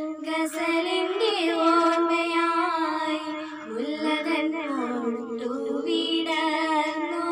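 A girl singing a song solo, holding long notes, with gliding, ornamented turns in pitch about halfway through.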